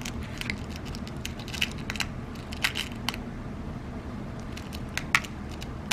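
Lead .22 hollowpoint airgun pellets clicking against each other and the metal tin as fingers pick through them and set one on a digital scale: scattered light clicks, a cluster in the first three seconds and more near the end, the sharpest about five seconds in.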